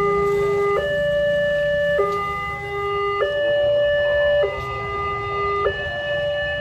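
Electronic warning alarm of a railroad level-crossing gate, sounding from the loudspeaker on the signal mast: two tones alternating low and high, each held about 1.2 seconds, three times each. This is the crossing's warning while its red lights flash, with a low rumble beneath.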